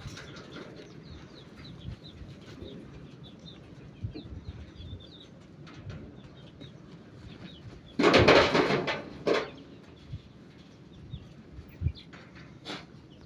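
Birds in a farmyard pen chirping in quick short high notes, then a sudden loud rustling burst about eight seconds in that lasts over a second, and a shorter sharp one near the end.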